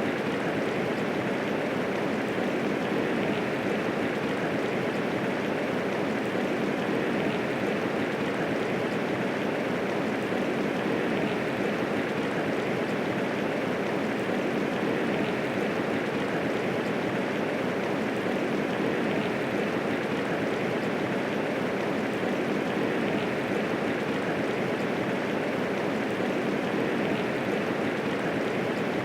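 Steady medium rainfall, an even rushing hiss of many drops with no thunder.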